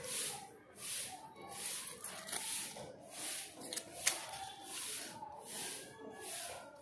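Knife scraping and peeling the papery skin off an onion, a rhythmic series of short dry scrapes, about one and a half to two a second, with a sharp click about four seconds in.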